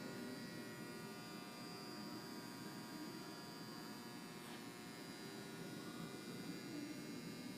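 Steady electric hum and buzz of the Fox hydraulic vertical baler's powered-up hydraulic unit running idle on its 440-volt three-phase supply, with a faint click about four and a half seconds in.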